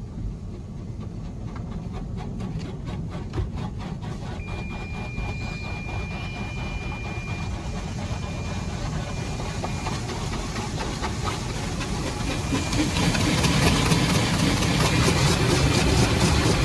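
Automatic car wash heard from inside the car: a steady mechanical rumble with a rapid, even patter of spray on the body. It grows louder near the end as water jets rinse the foam off the windscreen. A thin, steady whine comes in for a few seconds midway.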